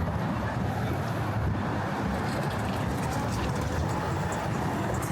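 City street ambience: a steady rumble of motor traffic, with faint voices of passers-by.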